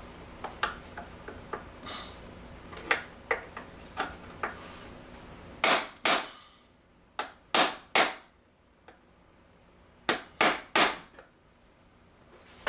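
Hammer tapping a skewed part into place on a Whirlpool washer door during a hinge replacement. Light clicks and taps come first, then eight sharper strikes in three quick groups over the second half.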